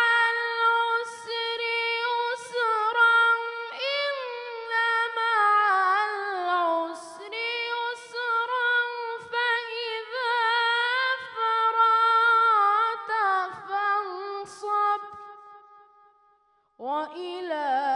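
A boy reciting the Quran in the melodic, ornamented style of tajwid: one high young voice holding long notes with winding turns, phrase after phrase with short breaths between. It breaks off about sixteen seconds in and starts again a second later.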